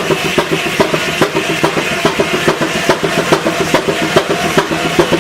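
A stationary engine running with a quick, even beat of about four strokes a second over a steady hum.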